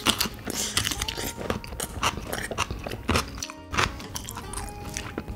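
Close-miked chewing and biting of a mouthful of curry, with many short wet mouth clicks, over quiet background music.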